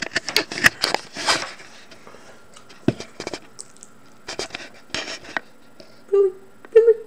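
A spoon clicking and scraping against a dish while scooping up dog food: a quick run of sharp clicks and rattles, then scattered single clicks. Two short voice-like sounds come near the end.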